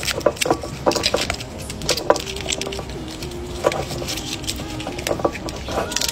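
Foil capsule on a sparkling wine bottle's neck being picked at, torn and peeled off by hand: irregular crinkling and crackling with sharp little clicks.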